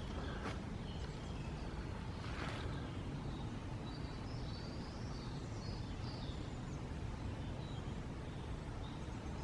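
Woodland ambience while walking: a steady low rumble, a couple of footsteps in the first few seconds, and faint high bird chirps from about four seconds in and again near the end.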